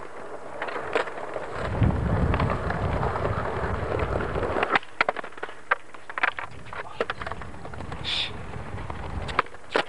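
Skateboard wheels rolling over paving slabs: a rough rumble swells about two seconds in and cuts off just before five seconds, with sharp clacks from the wheels and boards through the rest.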